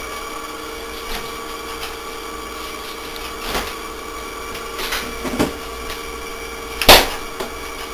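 Refrigerator freezer being opened and rummaged in, with a few faint knocks and one loud sharp knock about seven seconds in, over a steady hum.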